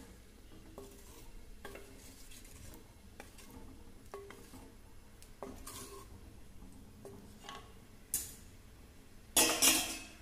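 Wooden spatula stirring thin egg curry in a clay pot: soft knocks and scrapes of wood against the clay every second or so, then louder, longer scraping clatters near the end.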